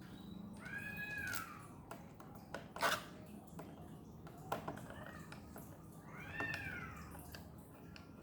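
A cat meowing twice, each meow rising then falling in pitch, about a second in and again near six and a half seconds. Between the meows come several sharp clicks and knocks, the loudest near three seconds.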